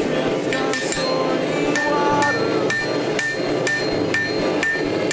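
Hand hammer striking hot blade steel on an anvil while forging a sword blade: a few scattered blows, then a steady run of about two blows a second, each with a short metallic ring, over a steady background noise.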